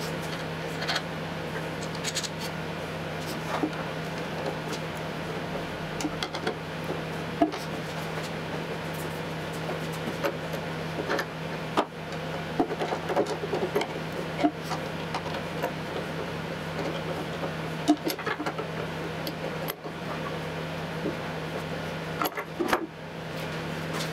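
Hex nuts being threaded onto screws and tightened with a wrench on a stepper motor's plywood mount. Scattered small metallic clicks and taps, busiest about halfway through, over a steady low hum.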